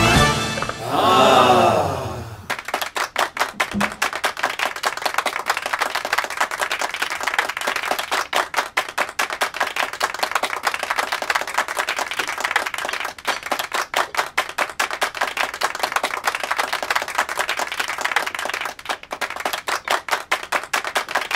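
Background music for about the first two seconds, cutting off abruptly, then steady applause: many hands clapping densely and unevenly.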